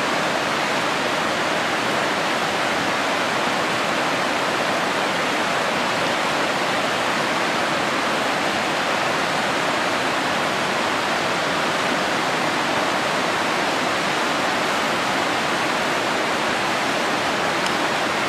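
Fast-flowing river water rushing steadily over riffles, an even, unchanging rush.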